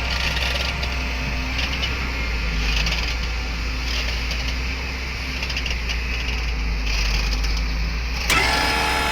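Excavator's diesel engine running steadily with a low hum. Music comes in near the end.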